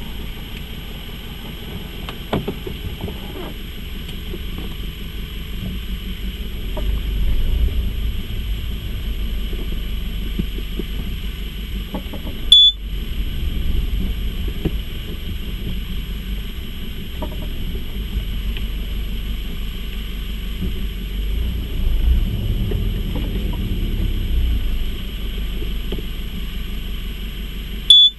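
Mercedes-Benz W201 running, a steady low rumble with scattered small ticks, while the car is started and pulled away. Twice the sound drops out briefly and a sharp loud pop follows.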